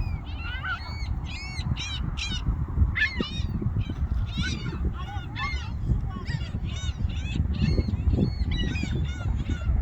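A flock of seagulls calling, many short cries a second overlapping one another, over a steady low rumble.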